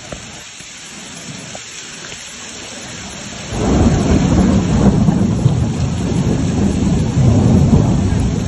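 Steady heavy rain, then, about three and a half seconds in, a loud rumble of thunder sets in suddenly and rolls on.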